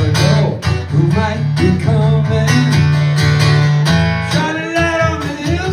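Live acoustic guitar strummed in a steady rhythm between the vocal lines of a folk-rock song, with the singing voice coming back in about four and a half seconds in.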